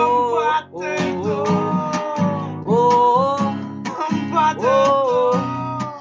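Acoustic guitar strummed steadily while a man sings long held notes over it, heard through a video call.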